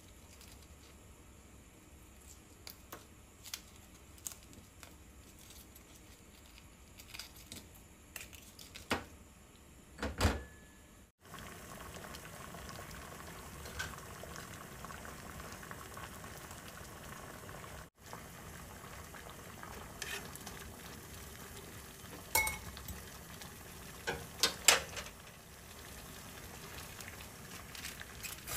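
Kitchen handling for the first ten seconds or so: scattered light clicks and knocks of utensils and cookware. Then a pot boiling on the stove, a steady bubbling hiss, with a few sharp clinks of utensils against cookware near the end.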